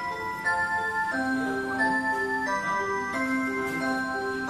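Rhythm musical motion wall clock playing its on-the-hour melody, an electronic chime tune with several notes sounding together over a low note that changes about every second.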